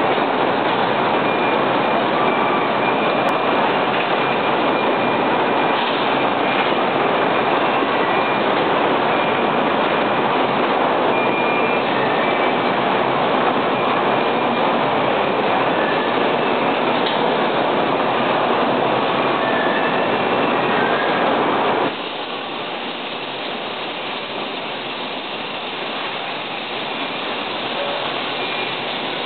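Steady, loud industrial noise of a multi-robot welding cell at work, with faint high tones riding on a dense hiss. About three-quarters of the way through the noise drops off suddenly to a quieter background.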